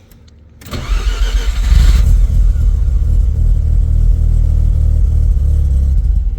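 Turbocharged Mazda RX-7's rotary engine cranking and catching about half a second in, running briefly at a low idle, then dying near the end. It won't hold idle because it is getting too little idle air: the bypass air control valve is blocked off.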